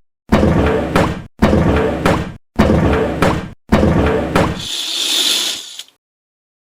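A short crashing, slamming sound effect repeated four times in quick succession, each burst cut off abruptly into dead silence. The last repeat turns into a brief hissing noise.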